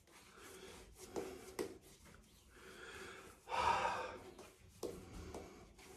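Shaving brush working lather over a scalp: soft, faint brushing strokes, with a louder breath about halfway through.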